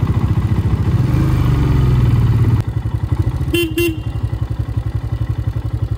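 Royal Enfield Himalayan 411's single-cylinder engine running under way, its note dropping quieter about two and a half seconds in; about a second later a horn gives two short toots.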